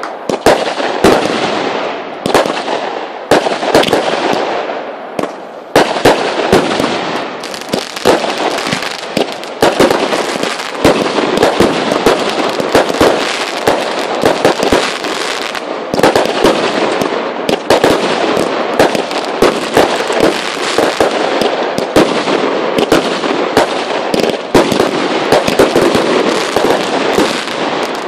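Fireworks display firing a continuous barrage of aerial bursts: many sharp bangs, often several a second, over a dense, unbroken hiss and crackle of exploding stars.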